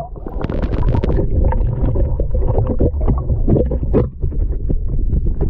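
Moving water heard through a microphone held underwater: a loud, muffled low rumble with many small clicks and knocks.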